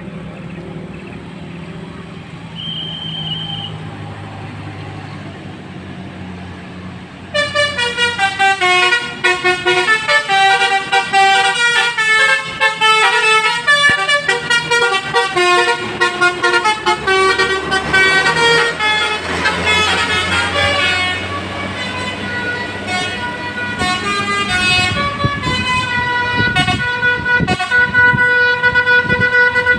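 Bus engine humming low for about seven seconds, then a basuri telolet horn on the bus roof starts suddenly and plays a quick tune of stepped horn notes. After about twenty-two seconds the tune changes to longer, repeated held notes.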